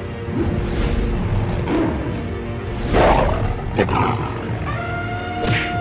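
Several cartoon tiger roars, one after another about a second apart, the loudest about three seconds in, over steady background music.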